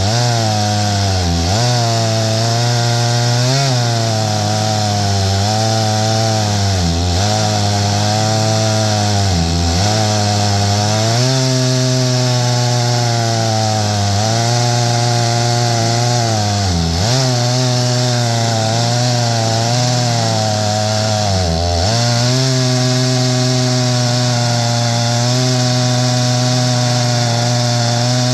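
Stihl MS661 two-stroke chainsaw with a 36-inch bar and full-chisel chain running flat out, ripping lengthwise through pine in an Alaskan chainsaw mill. The engine pitch sags sharply and recovers every few seconds as it bogs under the cut, then holds steady over the last few seconds.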